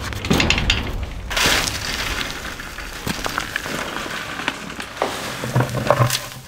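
Rocky dirt fill poured out of a plastic bucket onto the ground, a rush of soil and stones, among scattered knocks of rocks being set down on buried wire mesh.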